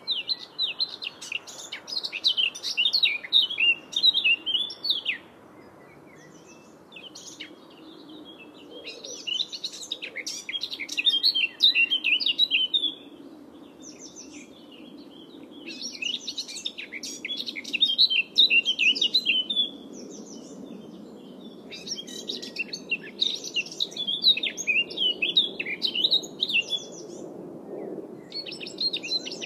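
A songbird singing in repeated bursts of rapid, high chirping, each several seconds long with short pauses between, over a faint steady low background hum.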